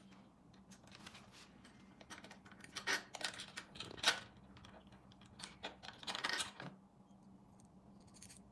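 Small metallic clicks and clinks of hands handling an e-bike headlight and its mounting bracket while fitting it to the front fork, coming in scattered clusters about three, four and six seconds in.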